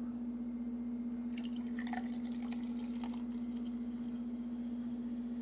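Carbonated kiwi-and-salt Fanta being poured into a cup, splashing and fizzing, loudest between about one and three seconds in. A steady low hum runs underneath.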